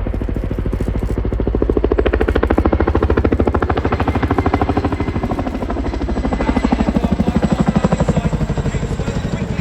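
Boeing Chinook HC.6 tandem-rotor helicopter in flight, its rotor blades slapping in a rapid, even beat. The beat swells louder about two seconds in and again about seven seconds in.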